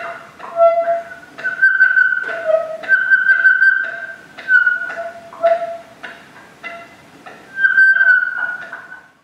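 Electronic oscillator beeps: clear tones at a few fixed pitches, a higher and a lower one, switched on and off with a click at each start, some held for about a second.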